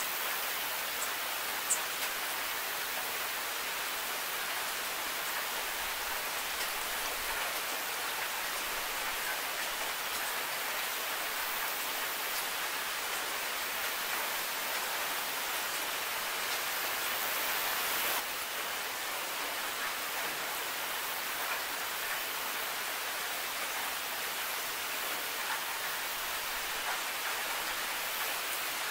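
Steady rain falling: a dense, even hiss of rainfall with a few sharper drop ticks near the start. It gets slightly quieter about eighteen seconds in.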